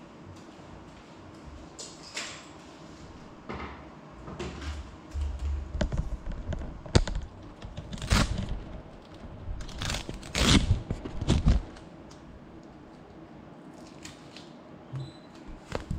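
Scattered knocks, thumps and rustling over a faint steady room hum, busiest from about five to twelve seconds in, picked up by a camera resting on a hard tiled floor.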